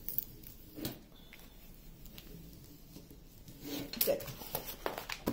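Light clicks and crinkles of a plastic-covered diamond painting canvas being handled and smoothed flat, a couple of short sounds about a second in and a cluster near the end.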